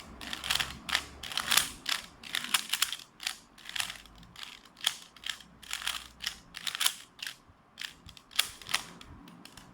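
Rubik's cube being turned quickly by hand: a rapid, irregular run of plastic clicks and clacks as the layers snap round, stopping near the end.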